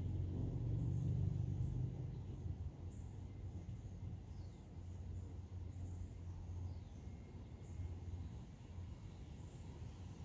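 Outdoor background: a steady low rumble, a little louder in the first two seconds, with faint high chirps every couple of seconds.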